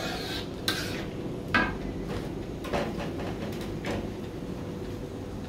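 Metal ladle scraping and knocking against a wok while stirring thick sambal tumis chilli paste: four strokes about a second apart, the last about four seconds in, when the ladle is left in the pan.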